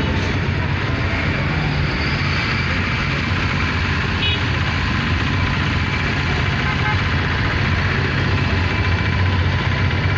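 Steady low rumble of vehicle engines and traffic noise.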